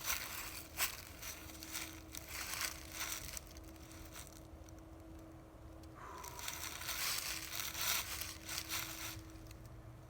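Crinkling, crumpling handling noise in two spells, about the first three and a half seconds and again from about six to nine seconds, over a faint steady hum.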